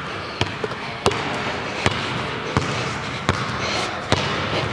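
Basketball dribbled on a hardwood gym floor, a steady bounce about every three-quarters of a second.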